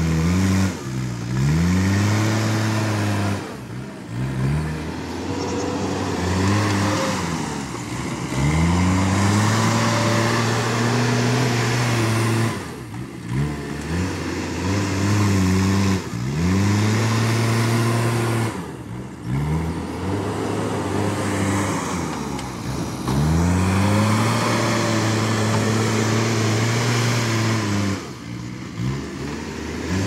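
JCB backhoe loader's diesel engine revving up and holding high under load, then dropping back, over and over every few seconds as the machine pushes loose soil with its front loader bucket.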